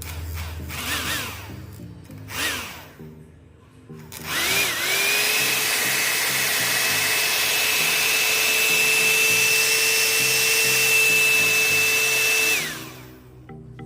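Homemade DC-motor jet engine whirring. It gives two short bursts that spin up and straight back down, then spins up to a steady high whine with a loud rush of air, holds for about eight seconds and winds down near the end.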